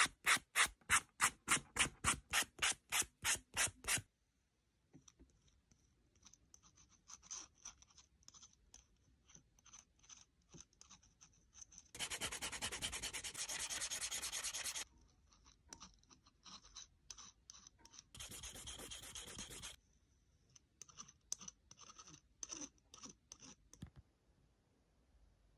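Abrasive sanding stick rubbed back and forth along the edge of a leather wallet, smoothing the edge for edge paint. For the first four seconds it makes about four quick, even strokes a second, then lighter scattered strokes follow, with two stretches of fast continuous rubbing, one a little past the middle and one about three-quarters of the way through.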